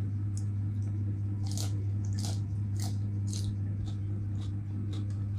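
A person chewing raw lettuce leaves: four crisp crunches in the middle, then softer, shorter crunches, over a steady low hum.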